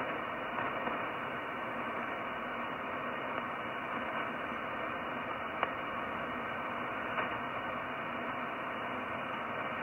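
Shortwave transceiver receiving in upper sideband on the 15-metre band, giving a steady band hiss with no signal on the frequency, between transmissions. Two faint clicks of static come through, one about five and a half seconds in and one about seven seconds in.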